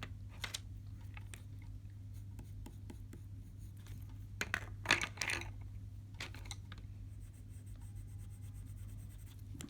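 Colored pencil scratching on paper in a few short, scattered strokes, the busiest cluster about five seconds in, over a steady low hum.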